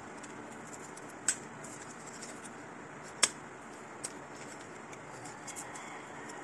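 Black plastic cellphone stand being handled and folded, giving small plastic clicks and ticks: a sharp snap about a second in, a louder one just past three seconds, and a lighter tick soon after, over faint room hiss.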